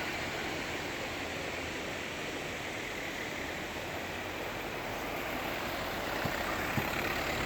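Steady outdoor background noise, an even hiss with no distinct events; it grows a little louder near the end.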